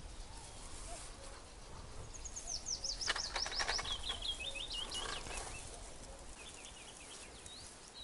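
A songbird singing: a run of quick high notes dropping in pitch, then a lower repeated phrase, and more short notes near the end. A few rustles or clicks sound in the middle of the song.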